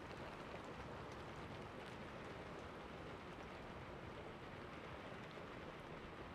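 Steady rain beating against window glass: a constant even hiss with a fine patter of individual drops.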